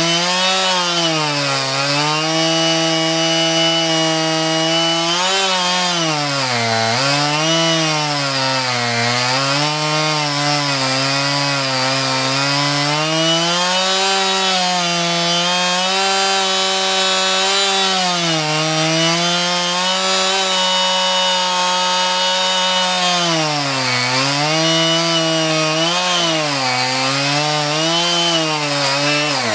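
Chainsaw running hard while cutting through a myoporum log. Its engine note sags as the chain bites into the wood and picks back up, over and over.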